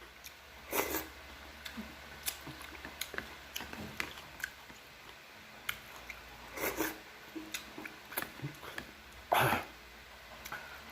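A person eating spicy noodles and kimchi: mouth noises of eating, with three louder short breathy sounds about a second in, near seven seconds and near the end, and light clicks of utensils in between.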